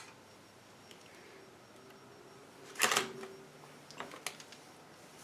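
Handling noise: a short clatter about three seconds in, then two light clicks about a second later, over a quiet background.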